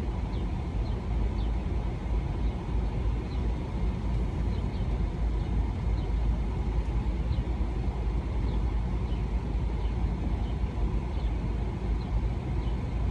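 Car idling, a steady low rumble heard from inside the cabin, with faint short high chirps here and there.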